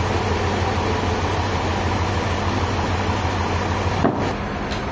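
An engine running steadily with a low hum, and a brief dip and a small knock about four seconds in.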